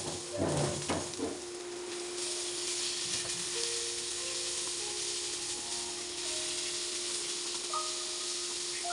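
Onion, garlic and freshly added ground pork sizzling in hot oil in a nonstick pan while being stirred with a silicone spatula. A few shuffling stirs come in the first second or so, then the sizzle grows louder about two seconds in and holds steady.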